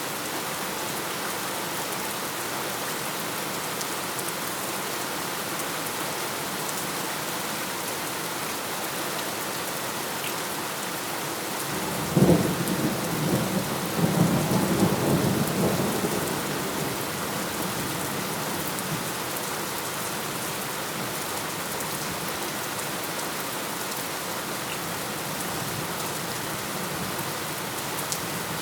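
Steady rain falling, with a single thunderclap about halfway through: a sharp crack followed by a few seconds of rumbling that fades back into the rain.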